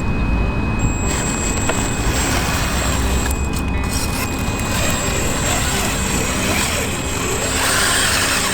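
Electric motor and geared drivetrain of a radio-controlled scale Jeep Cherokee crawler whirring steadily as it drives, on a test run of its freshly rebuilt transmission.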